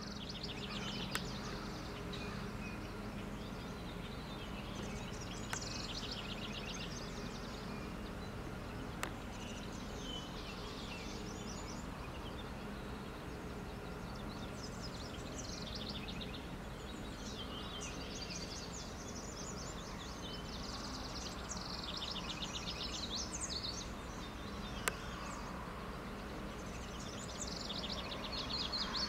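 House wren singing: a rapid trilling song a second or two long, repeated every few seconds, over a steady low background hum. A few sharp clicks stand out.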